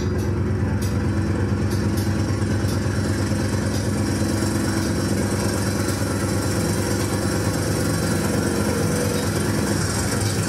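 Live experimental noise music: a dense, steady drone with a strong low hum, with a few faint clicks in the first three seconds.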